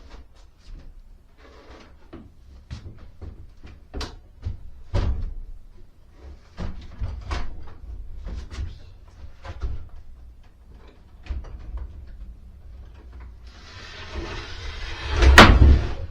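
Scattered knocks and clatter of things being handled and moved, then a sliding rumble about 13 seconds in that ends in a loud bang near the end.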